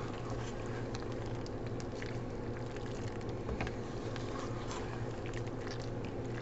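Wooden spoon folding pasta shells into cheese sauce in a skillet: soft squelches and light scrapes against the pan, over a steady low hum.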